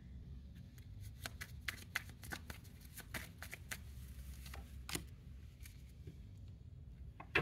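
A deck of illustrated oracle cards being shuffled and handled by hand: a steady run of soft, quick card clicks, with a louder snap about five seconds in as a card is laid on the table, and a sharp click near the end.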